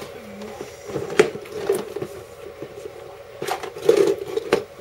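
Scattered clicks, knocks and rustling of objects being handled and moved about, with the sharpest knock about a second in and a cluster of knocks near the end.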